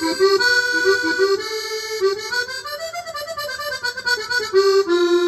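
Yamaha DGX670 digital piano playing a sampled accordion voice: a short melodic phrase with a quick run in the middle, settling onto a held note near the end.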